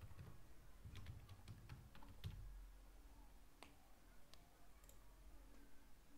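Faint typing on a computer keyboard: a quick run of keystrokes about a second in, then a couple of single clicks.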